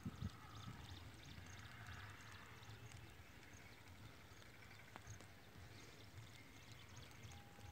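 Near silence: faint outdoor background with a low hum and a couple of soft clicks.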